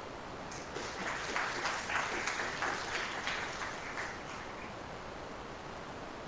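Audience applauding briefly, starting about half a second in and fading out after about four seconds.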